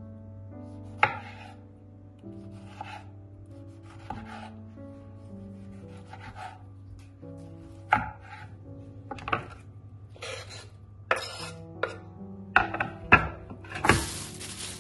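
Kitchen knife chopping tomatoes on a bamboo cutting board: scattered sharp knocks of the blade on the wood, a quicker run of chops near the end, then the blade scraping across the board. Background music plays underneath.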